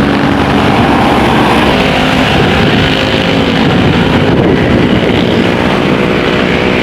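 Large bus engine running loud and close as a bus drives past, with steady tyre and road noise.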